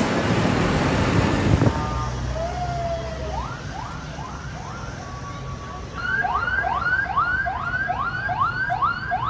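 Loud, close rumble of a passing decorated tractor, cutting off about two seconds in. Then a siren sounds a quick, repeated rising whoop, between two and three sweeps a second, most regular in the second half, over a faint low engine hum.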